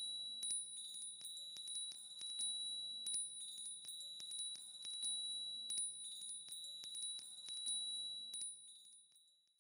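Metal chimes ringing softly, with quick irregular tinkling strikes over a steady high ring. Soft low instrument notes sound underneath. It all fades away near the end.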